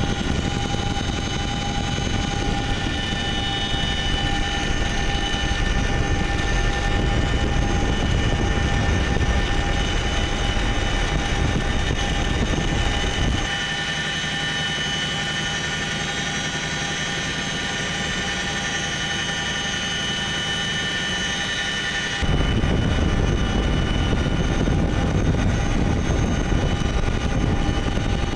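Boeing CH-47 Chinook helicopter running in flight: a heavy low rumble of rotors and engines under several steady high whining tones. From about 13 seconds in the low rumble drops away and it is slightly quieter; it comes back at about 22 seconds in.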